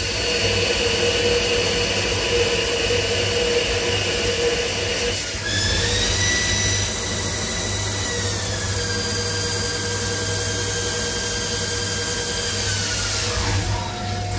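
Haas ST20Y CNC lathe turning stock for a camshaft lobe with the finishing tool: a steady spindle whine over the hiss of coolant spray. The whine steps up in pitch about five seconds in, then steps down in two stages, the second near the end.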